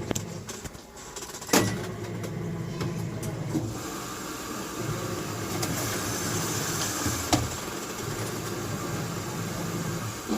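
Washing machine running with a steady low hum. Two sharp knocks sound, and a steady hiss comes in about four seconds in.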